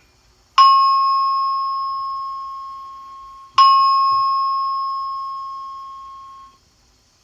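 Two identical chime tones about three seconds apart, each struck sharply and ringing down slowly. It is the attention chime of a building's indoor emergency notification system, sounded ahead of a spoken test message.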